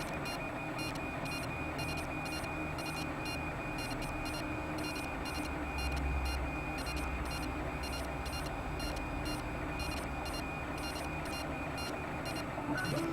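Mendel-type 3D printer running a print: its stepper motors give a steady high whine over a low hum, with quick, regularly repeating ticks as the axes move.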